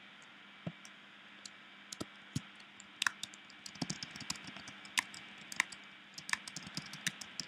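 Typing on a computer keyboard: irregular key clicks, a few scattered at first, then a quicker run of keystrokes from about three seconds in.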